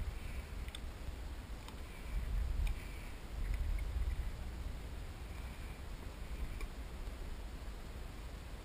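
Low, uneven rumble of water and movement around a fishing kayak, swelling a couple of times, with a few faint ticks.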